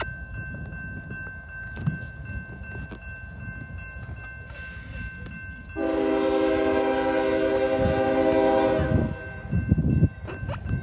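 A CSX locomotive's air horn sounds one long multi-note chord for about three seconds, starting about halfway through, over the low rumble of the train. Near the end a few short, low bursts of noise follow.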